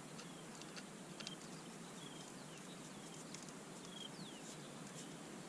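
Quiet outdoor background with faint, scattered bird chirps, short high notes and quick glides every second or so, and a few light clicks.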